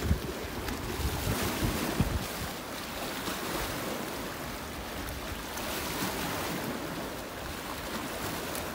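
Waves washing against the rocky shore, with wind gusting on the microphone in low rumbles during the first couple of seconds.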